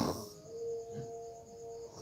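The end of a loud human snore, then the pause between snores, in which a faint steady tone and a faint high-pitched pulsing continue in the background.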